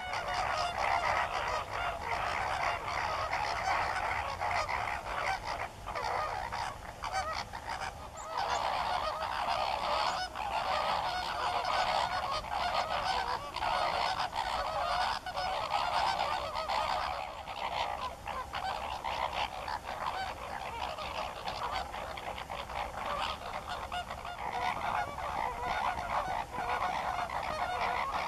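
A flock of greater flamingos honking continuously, many birds calling over one another at once. This is the chorus of a group courtship display, with head-flagging and wing-salutes.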